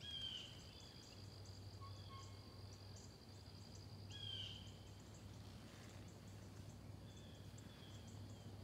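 Faint woodland ambience: insects trilling in a steady high drone with a quick pulsing chirp above it, and a few short bird calls scattered through, over a low steady hum.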